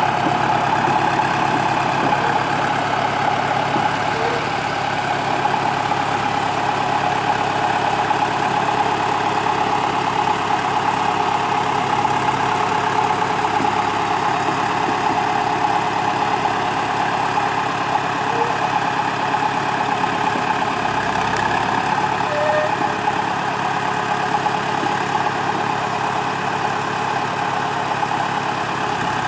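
Small narrow-gauge diesel shunting locomotive idling steadily.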